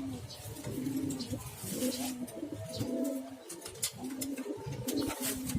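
Domestic pigeon cooing, a short low coo about once a second, with scattered sharp clicks between the coos.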